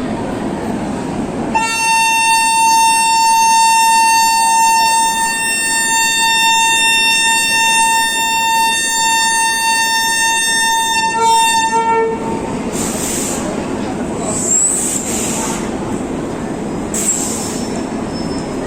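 Horn of a WAP-7 electric locomotive sounding one long, shrill honk of about ten seconds, ending in two short toots, as the train departs. After it comes the steady noise of the moving train with a few brief hisses.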